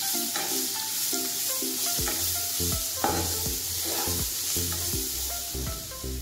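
Chopped onions sizzling in hot oil and spiced masala in a non-stick frying pan, stirred with a metal spatula that scrapes the pan now and then. Soft background music plays underneath.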